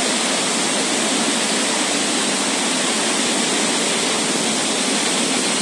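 A river in monsoon flash flood: the steady, unbroken rush of fast, high floodwater.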